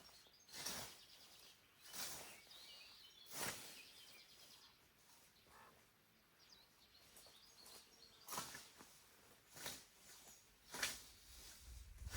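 Hand scythe swishing through tall grass in a steady rhythm: three strokes about a second and a half apart, a pause of a few seconds, then three more strokes.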